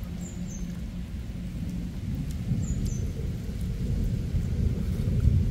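Thunder rumbling low and growing louder toward the end, over steady rain.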